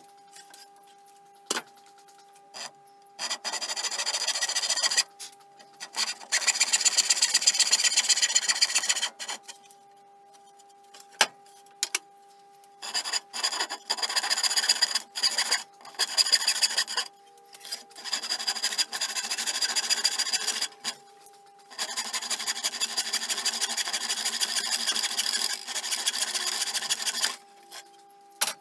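Hand saw cutting through an old reclaimed timber plank: several runs of quick back-and-forth strokes with short pauses between them.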